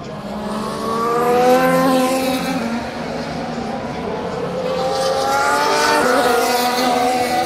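Formula 1 cars' turbocharged V6 engines accelerating past, their pitch climbing as they pull away. They pass in two swells, the first loudest about a second and a half in and the second around six seconds in.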